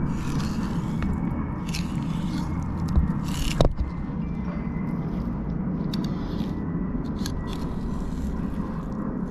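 Knife cutting and scraping through salmon flesh and bone as the head and fins are separated, with a couple of sharp knocks about three seconds in, over a steady low rumble.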